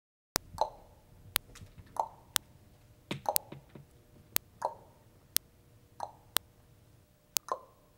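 After a moment of dead silence, sharp clicks at an even pace of one per second, with short hollow plops at uneven intervals between them.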